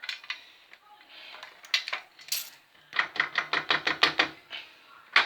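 Metal rattling and clicking from a BMX bike with a newly mounted electric motor, as the motor and bike are shaken by hand to test that the mount is tight. There are scattered clicks, then a quick run of about eight knocks a second about three seconds in, and one sharp knock near the end.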